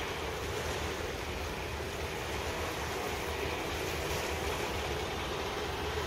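Steady low rumble and hiss of harbour ambience, with wind buffeting the microphone.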